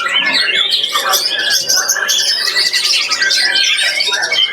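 Many caged songbirds singing over one another in a continuous, dense tangle of rapid high chirps, trills and whistles.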